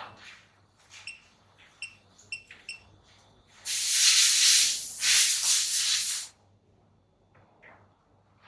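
A few light clicks and taps, then a loud hiss of gas or spray released under pressure for about two and a half seconds, with a brief dip in the middle.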